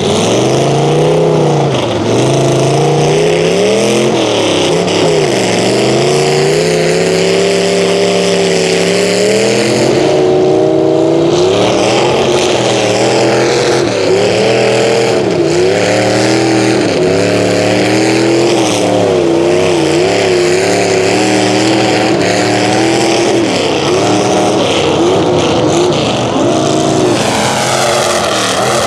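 Lifted mud truck on tractor tires revving its engine hard through a water-filled mud pit, the engine pitch climbing and dropping over and over, with a hiss of water and mud thrown up by the spinning tires.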